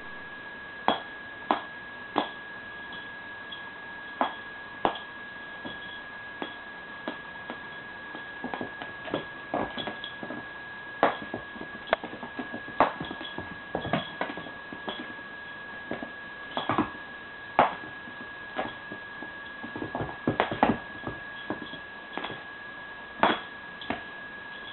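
Irregular sharp taps and thumps of a cat playing with a cat-teaser toy, pouncing and batting at it, over a steady high-pitched whine.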